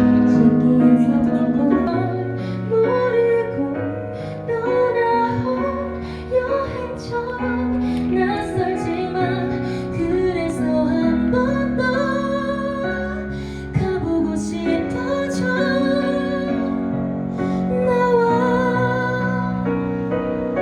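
A female singer sings a slow song live over piano or keyboard accompaniment, with held chords underneath and vibrato on the sustained notes.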